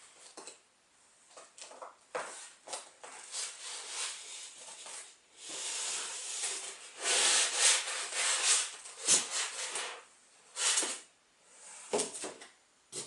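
Packaging rustling and rubbing as boxed floor-standing speakers are unpacked by hand, in irregular bursts with a few sharp knocks. The loudest handling comes a little past halfway.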